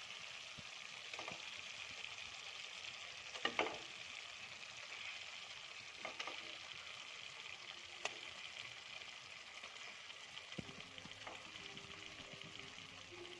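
Thick onion-tomato masala sizzling softly in oil in a non-stick pan, fried until the oil has separated. A few light knocks come as boiled eggs are set into the pan and a wooden spatula moves against it. A faint low hum joins near the end.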